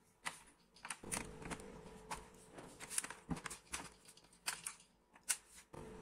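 Scattered light clicks and taps of hands handling a laptop's plastic bottom case.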